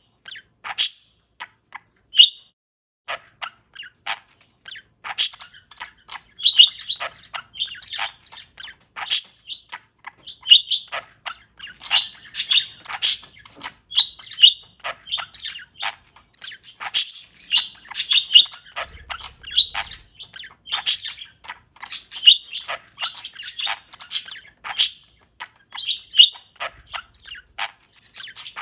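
Pet parakeet chirping: a busy run of short, high chirps and tweets, sparse at first and then nearly continuous.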